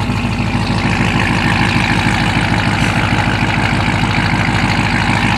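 Truck engine idling steadily, loud and nasty through its exhaust, which sounds straight-piped to the listener.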